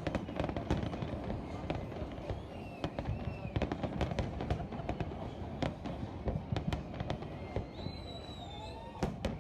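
Fireworks display: a continuous low rumble of booms with rapid, scattered crackling bangs.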